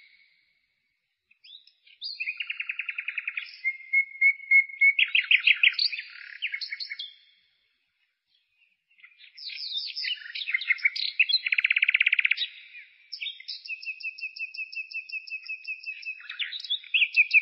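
A songbird singing: phrases of rapid chirps and fast rattling trills, broken by two pauses of a second or two.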